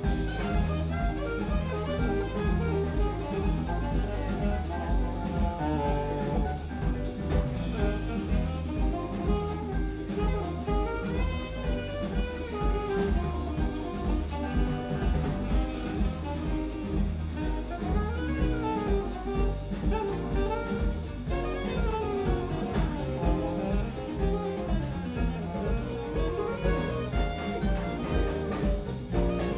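Live big band jazz: a saxophone solo with sliding melodic runs over a steady drum kit and bass groove.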